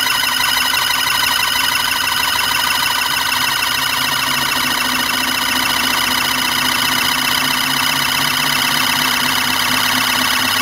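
Homemade iron-core axial flux pulse motor running, its pulsed coils giving a steady, high buzzing whine with many overtones and a fast warble, over a lower hum.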